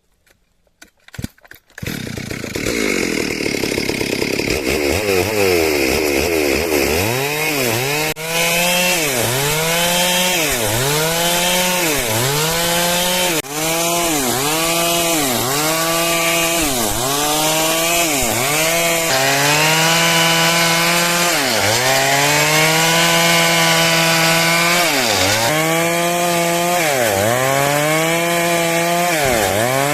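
Stihl MS 382 two-stroke chainsaw cutting through wood. It comes in about two seconds in, and its engine pitch dips under load and picks up again every one and a half to two seconds.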